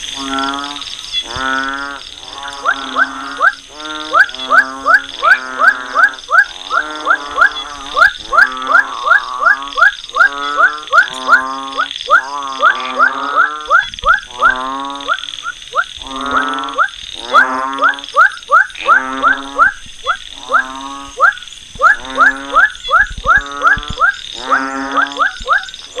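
Frogs croaking at night in a rapid series, about two short calls a second, each with a rising, twangy pitch, with brief pauses now and then. A steady high-pitched drone runs behind the calls.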